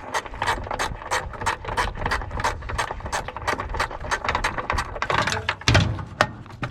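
A hand ratchet clicking steadily, about three clicks a second, as a screw is worked loose while taking apart an air conditioner for scrap. Near the end come a few louder metal knocks.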